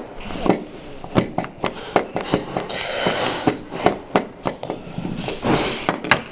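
Irregular sharp clicks and knocks with brief rustling, as the plastic pieces of a twisty puzzle cube are handled and pulled apart.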